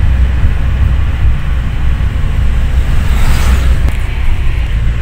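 Road and engine noise inside a moving car: a steady low rumble, with a brief swell of hiss about three seconds in.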